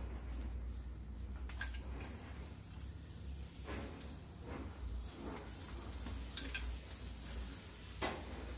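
Maple-glazed salmon fillets sizzling on a gas barbecue grill, a steady hiss over a low steady rumble, with a few light clicks and knocks scattered through.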